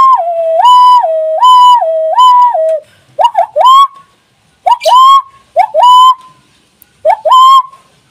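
Hand whistle, blown into clasped fists with the thumbs together, imitating an emergency siren. It first swaps between a high and a low note four times like a two-tone ambulance siren, then gives short rising whoops in pairs, the "wuk wuk" of a police siren.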